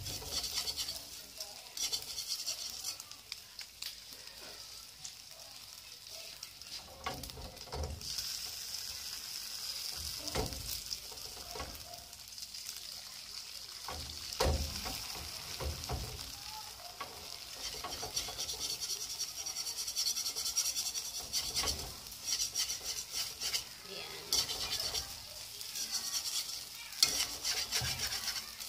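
Beaten eggs sizzling steadily in hot oil in a wok, with scattered taps and scrapes of a cooking utensil against the pan.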